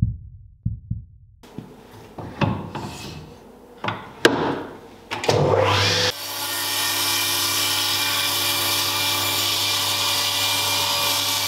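Table saw ripping a wooden board: a steady cutting noise with a motor hum begins about six seconds in. Before it come scattered clicks and knocks and a rising sweep.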